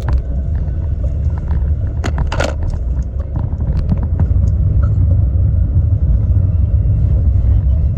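Steady low rumble of a car driving on the road, heard from inside the cabin, with a couple of short sharp sounds about two seconds in.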